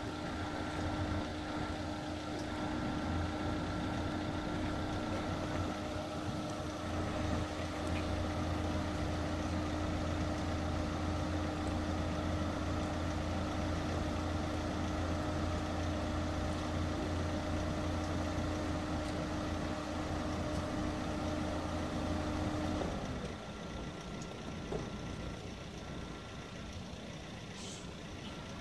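An idling engine giving a steady, even hum that stops abruptly about 23 seconds in, leaving quieter road-side background noise.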